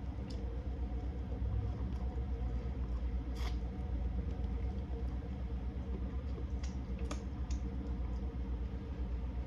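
A steady low hum runs throughout, with a few short, sharp clicks and crunches of eating scattered through it, the loudest about three and a half seconds in.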